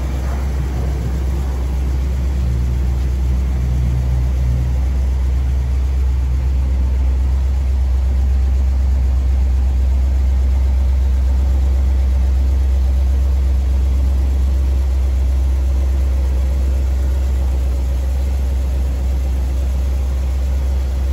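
1960 Ford Thunderbird's 352 cubic-inch (5.8 L) V8 idling steadily with a deep, even low rumble.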